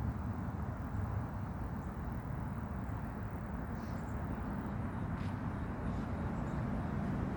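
Steady low outdoor background rumble with a few faint, short high chirps; the warning siren is not yet sounding.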